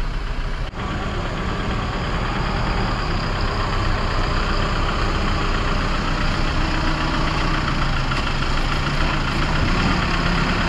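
Engine of a small flatbed truck running steadily at low speed as it manoeuvres close by, with a brief break under a second in.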